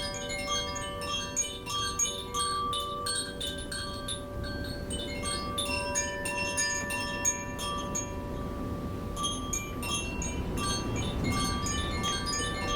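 Koshi chimes ringing: tuned metal rods struck again and again by the clapper, giving dense, overlapping strikes that ring on as a shimmering cluster of tones. The high strikes thin out briefly past the middle, then pick up again.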